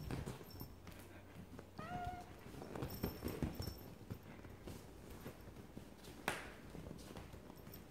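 A house cat gives one short, slightly rising meow about two seconds in, among the soft thumps and rustling of it leaping and scrambling on the couch while chasing a wand toy. A single sharp tap comes near the end.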